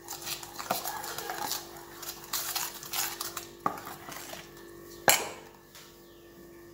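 A steel spoon stirring a wet curd mixture in a stainless steel bowl, scraping and clinking against the sides, with one sharp clank about five seconds in before the stirring quietens. A faint steady hum runs underneath.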